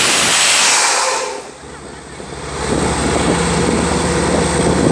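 Borewell drilling rig blowing compressed air out of the borehole, a loud hiss that cuts off a little over a second in. Then the rig's engine and compressor run on as a low drone with a fast, even pulse.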